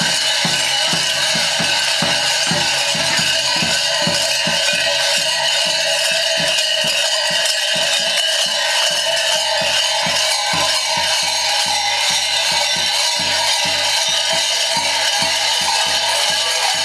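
Many large bells worn by Bulgarian arapi mummers jangling together in a dense, continuous clangour, shaken in an even beat of about three to four strokes a second.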